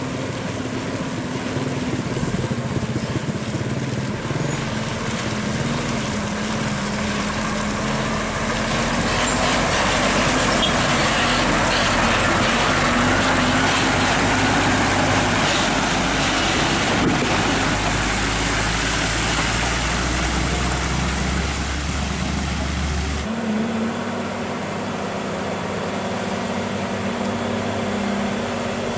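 Heavy truck engines running as trucks drive by on a road, with the sound swelling to its loudest around the middle. About 23 seconds in it cuts abruptly to a different, steadier engine running.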